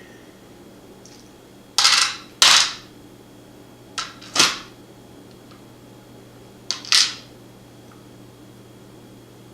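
Sharp clacks of a metal padlock and its parts being handled as it is taken apart, coming in three pairs a couple of seconds apart.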